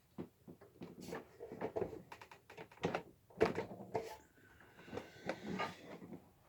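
Irregular knocks, clicks and thunks of hand work at a drill press being used to press frets into a guitar fretboard, its feed handle broken off.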